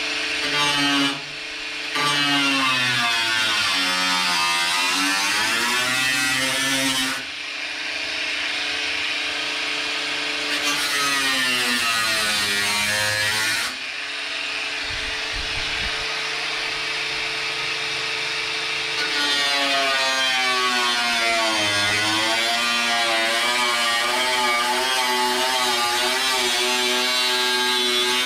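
Angle grinder with a cut-off disc cutting through a Nissan 350Z's steel front fender. It is a steady, loud whine whose pitch sags as the disc bites into the metal and then recovers, and it breaks off abruptly a few times.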